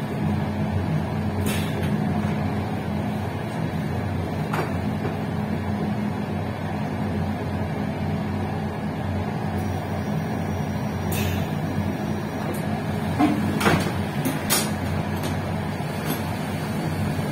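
Steady hum and rumble of a passenger train on the rails, heard from inside the rear cab. A few sharp clicks and knocks come through, one early, two close together about two thirds of the way in, and one near the end.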